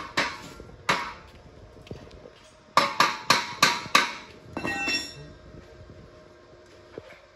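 Sharp metal blows struck on a steel exhaust muffler's casing, each with a short metallic ring: two single blows, then a quick run of five about three a second.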